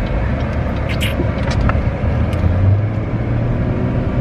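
A car driving, its engine and road noise heard as a steady low rumble from inside the cabin, with a brief click about a second in.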